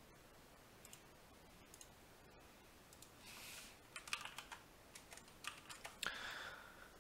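Faint computer keyboard typing: a quick run of keystrokes from about four to six seconds in, with a few scattered clicks before it and two soft rustles, one just before the typing and one just after it.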